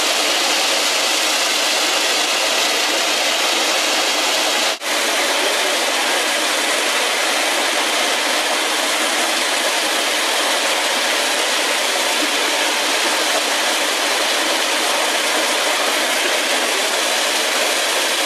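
Bulk liquid nitrogen tank venting: a loud, steady rushing hiss of gas escaping, broken only by a brief dip about five seconds in.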